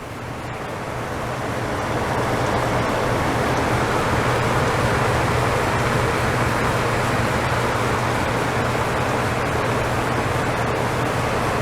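Hitachi DE-N35FY electric clothes dryer running after a new belt, cleaning and oiling: a steady rush of air from the fan and turning drum over a low hum, building up over the first two seconds, with no squeal or knocking.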